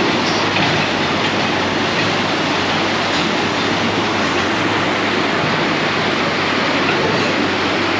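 Steady loud rush of pumped water from a FlowRider wave simulator, a thick sheet of water pouring up the curved ride surface and churning into whitewater, with a low steady hum underneath.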